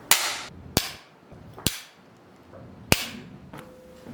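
Film clapperboard slate claps: four sharp single cracks spread over a few seconds, the first with a short room ring after it, each the sync mark for a take.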